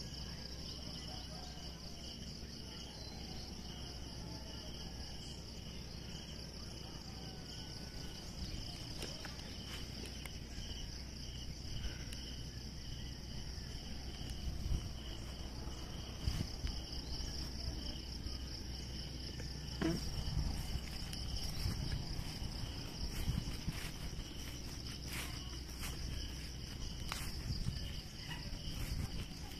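Steady, high-pitched chorus of insects shrilling, on two unbroken pitches, over a low background rumble. Faint clicks and knocks come and go in the second half.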